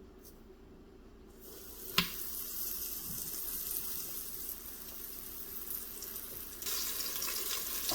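Flour-dusted chicken cutlets sizzling in hot olive oil in an Instant Pot on sauté. The sizzle starts about a second and a half in, with a sharp click just after. It grows louder and more crackly about two-thirds of the way through.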